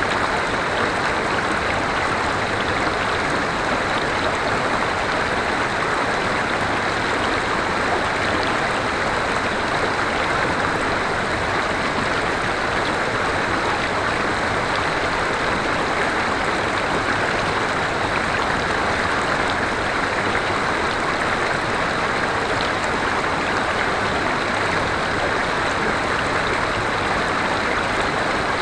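River water flowing steadily over a stream bed, an even rushing sound with no pauses.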